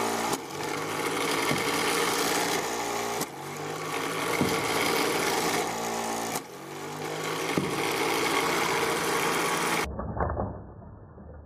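The flywheel shooter's electric motor is whirring, rising in pitch in runs of about three seconds that break off and start again. Near the end it drops to a muffled low hum with a single click.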